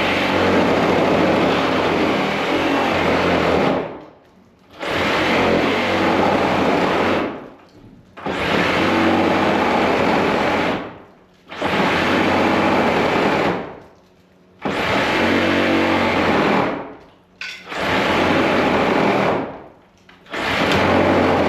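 Cordless reciprocating saw cutting through old framing lumber, run in about six bursts of two to four seconds with short pauses between them. The battery is close to flat and the blade is worn and bent.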